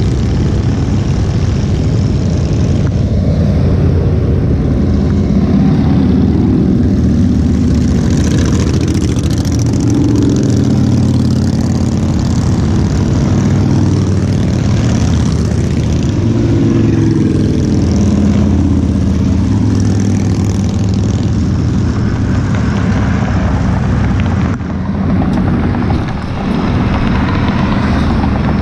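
A stream of motorcycles riding past one after another, their engines running with a steady low rumble that swells as bikes go by in the middle and eases off near the end.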